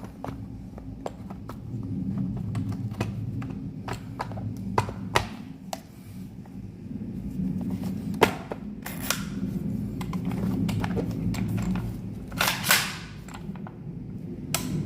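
Clicks and knocks of a VFC MK20 SSR gas blowback airsoft rifle being reassembled by hand, its bolt carrier and parts fitted back together. Scattered light clicks, with sharper clacks about five, eight and twelve seconds in.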